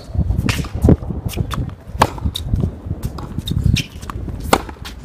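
Tennis practice on court: sharp knocks of a tennis ball being struck and bouncing, the loudest about one, two and four and a half seconds in, among footsteps, over a steady low rumble.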